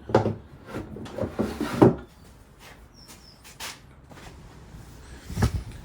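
Plastic storage drawers being slid into the pedestal cabinet. Scraping and clattering knocks come in the first two seconds, then a few lighter clicks, and one heavier thump near the end.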